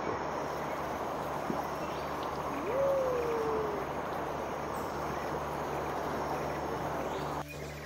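Steady rushing of a shallow river running over rocks, with a single short hooting call that rises and then falls about three seconds in.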